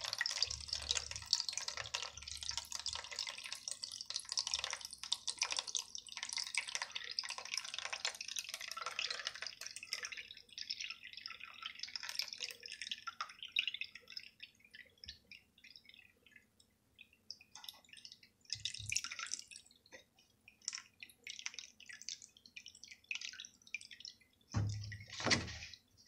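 Waste water running from a Miele W3164 front-loader's drain filter outlet into a plastic tub, a steady trickle that thins over the first half to scattered drips as the drum empties. A brief louder handling noise near the end.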